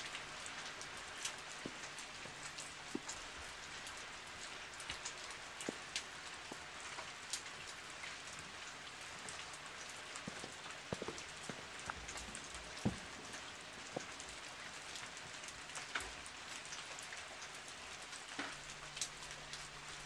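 Steady rain falling, an even hiss with scattered sharp drops ticking.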